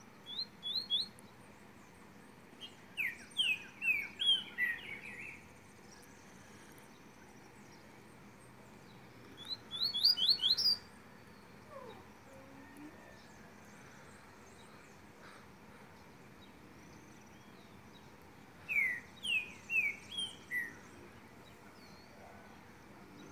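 Songbird singing in short phrases of quick, high notes that slide steeply downward, in four bursts with pauses between.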